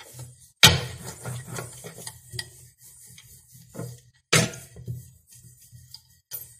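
Rolling pin being pressed and rolled over thin, oiled dough on a stone counter: soft rubbing with scattered light knocks and clicks, and a sharper knock about half a second in and again around four seconds in, over a low hum.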